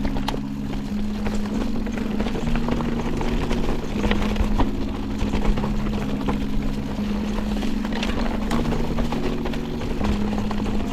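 Background music with a low line of held notes changing about once a second, over the rush and scattered knocks of a mountain bike riding a rocky trail.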